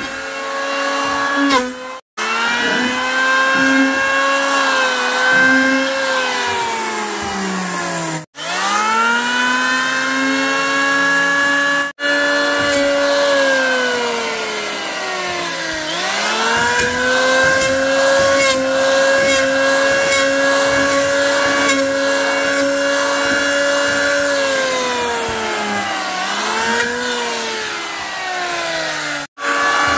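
Handheld electric power tool working wood, its motor whine dropping in pitch under load and climbing back several times. The sound cuts out sharply a few times and spins back up after one of the breaks.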